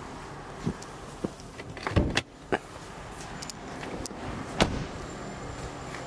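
Ford S-Max car doors being handled and shut: several dull thumps and clicks, the loudest about two seconds in and again near five seconds, over a steady background hum.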